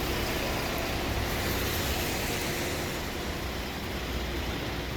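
Steady city traffic rumble, an even noise with no distinct events.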